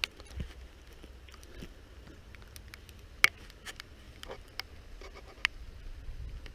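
Scattered raindrops tapping close to the microphone at the start of a hard rain: sharp, irregular ticks over a faint low rumble.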